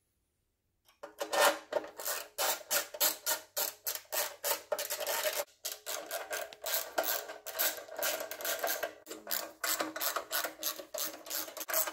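Hand tool tightening the bolts of a generator's recoil starter cover: a quick, uneven run of metallic clicks and scraping that starts about a second in.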